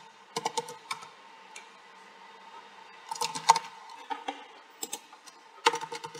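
Computer keyboard typing in short bursts of keystrokes with pauses between them, over a faint steady hum.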